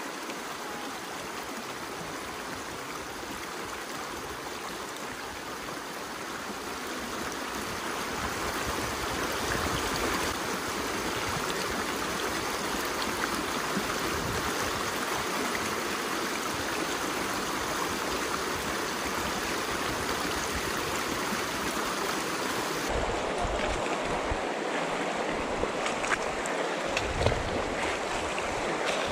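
Steady rush of river water flowing through a narrow canyon, growing louder over the first ten seconds. About two-thirds of the way in the sound shifts abruptly, and uneven low rumbles come in underneath the water.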